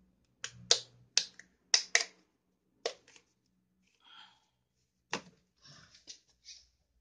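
Snap-on plastic lids of small sauce cups clicking as they are pried off and handled: a run of sharp clicks in the first three seconds and another click a little after five seconds, with soft plastic rustling in between.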